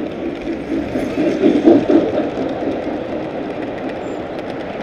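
Steady rumble and light clicking of large-scale model train wheels rolling over the track, heard from on board the moving train, growing louder for about a second around the middle.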